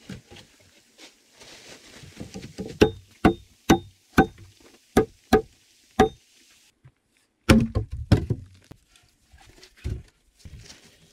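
Logs being worked into a dugout's log wall: a run of about seven sharp, evenly spaced knocks, roughly two a second, then after a short break a heavy wooden thud and clatter as a log is set in place, and one more knock near the end.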